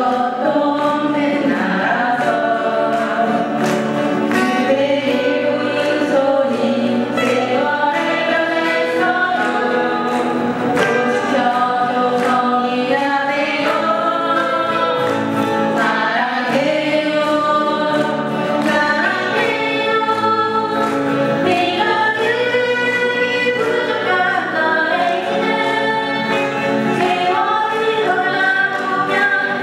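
Several women singing a song together to strummed acoustic guitars.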